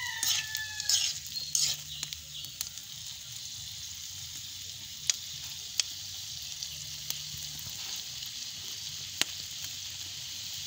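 Palm weevil grubs frying in hot oil in a wok: a loud rush of sizzling in the first two seconds as they go into the pan, settling into a steady hiss. Three sharp clicks come later.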